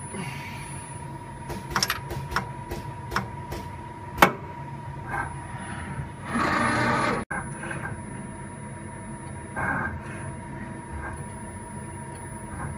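AVYAC NC18 CNC tool grinder running through its automatic end mill loading cycle: a steady machine whine under a series of sharp mechanical clicks and clunks from the loader and clamping. About six seconds in comes a one-second noisy rush, the loudest sound, with a shorter one near ten seconds.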